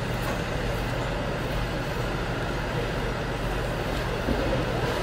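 Steady hum and rushing air noise of an indoor ice rink's machinery, with no clear individual events.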